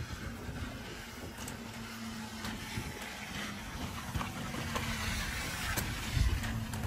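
A car coming slowly along a narrow wet lane: engine running with a steady low hum, tyres hissing on the wet road, growing a little louder as it nears.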